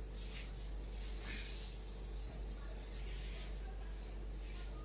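A handheld eraser wiping a whiteboard clean in a series of rubbing strokes, over a faint steady hum.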